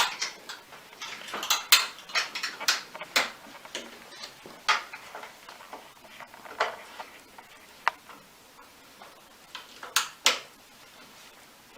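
Small metal clinks, clicks and scrapes as a bed-frame bolt is tightened, with the supplied hand tools holding the nut on one side and turning the bolt from the other. The clicks come in an irregular cluster over the first few seconds, then singly every second or two.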